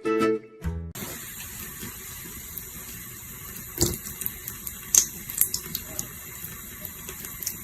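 Water running steadily, like a tap, with a few sharp clicks or light knocks about four and five seconds in. A plucked guitar tune plays for about the first second and then cuts off.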